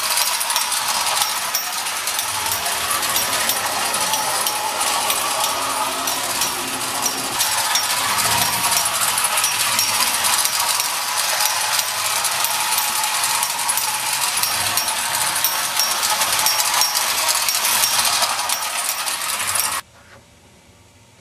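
Marx windup toy steam locomotive running on tin-plate track: its spring-driven clockwork motor and wheels make a dense, steady metallic whirring rattle that cuts off suddenly near the end.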